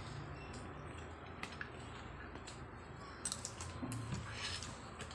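Metal spoons clicking and scraping against a plastic food tub while scooping: a few faint, light clicks, sparse at first and coming more often in the second half.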